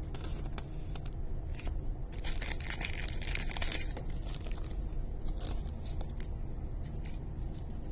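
Irregular rustling and crinkling of plastic and paper as trading cards are handled and slid into plastic card sleeves.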